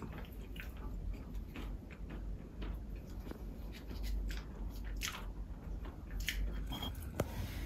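Canned tuna being scraped from its tin and pressed into a stainless-steel food bowl by hand. Irregular soft, wet squishes mix with light metal scrapes and clicks, a few of them sharper near the end.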